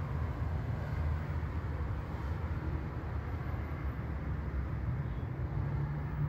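Steady low rumble of street background noise, with no distinct events.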